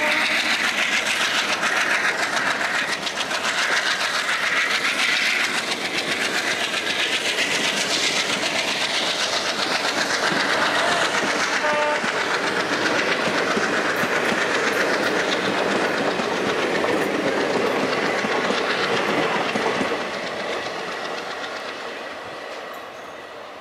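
Passenger coaches rolling past with wheels clattering over the rail joints, under the steady heavy running of an ALCO WDG-3A diesel locomotive hauling the train away from a stand. A brief horn note sounds about halfway, and the train sound fades away in the last few seconds as the last coach recedes.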